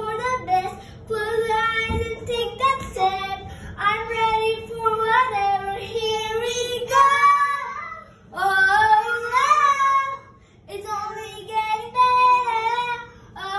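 A young girl singing a pop song, the melody moving in short phrases with brief breaks between lines.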